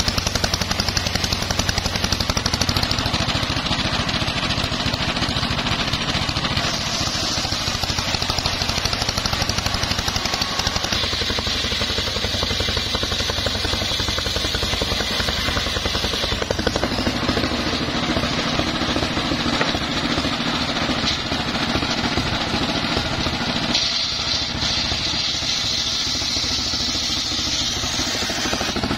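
Engine-driven home-built circular saw bench ripping a teak log lengthwise: a steady engine drone under the large blade's cutting, with a higher whine that comes and goes as the blade bites into the wood.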